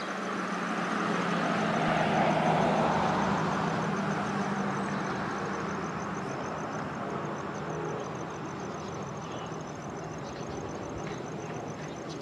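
A road vehicle passing close by: a rushing sound that swells to its loudest about two seconds in and then slowly fades. A low engine hum in it drops slightly in pitch as it passes.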